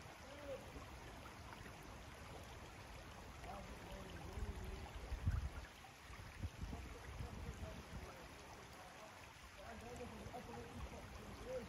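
Water gurgling and trickling among shoreline rocks, with gusts of wind rumbling on the microphone, the strongest about halfway through.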